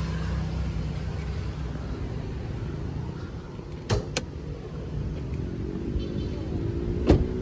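Steady low rumble of a motor vehicle. Two sharp knocks come about four seconds in and a louder knock near the end.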